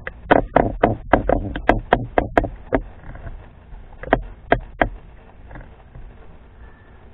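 A quick series of sharp clicks, about four a second for nearly three seconds, then three more spaced clicks a little after four seconds in.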